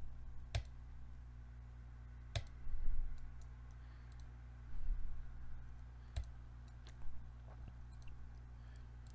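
Computer mouse clicking, several separate sharp clicks spaced a second or more apart, over a steady low electrical hum.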